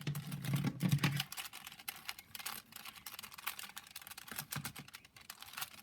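Plastic layers of a fused Siamese Rubik's Cube being turned rapidly while it is scrambled: a quick, irregular run of small clacks and clicks, busiest in the first second.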